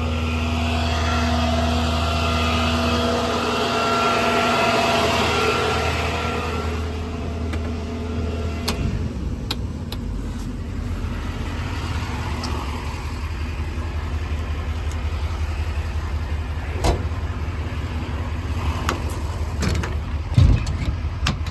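A 2008 Chevrolet C5500's 6.6-litre Duramax diesel running steadily at idle. For the first six or seven seconds a steady whine rides over it, then fades out. A few sharp clicks and knocks come later.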